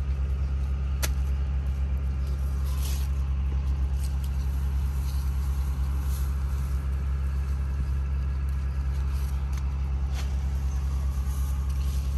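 Steady low motor hum, with a few light clicks.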